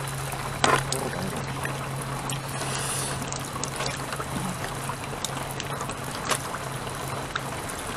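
Steady trickling of running water, with a low steady hum beneath it and two sharp knocks, one about a second in and another near the end.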